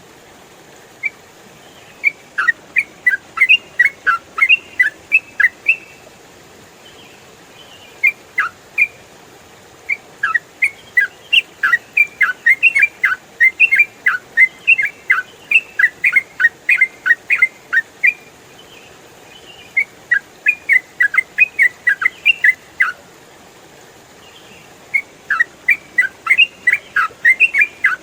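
Yellow-vented bulbul singing rapid runs of short, sharp whistled notes in phrases a few seconds long, with brief pauses between phrases.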